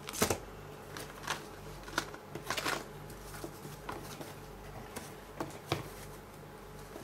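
Cardboard packaging and a small plastic parts bag being handled, giving short rustles and light clicks at irregular intervals over a faint low hum.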